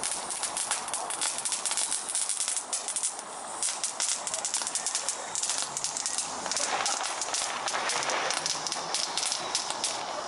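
Ground fountain firework burning, a steady hiss laced with rapid crackling pops.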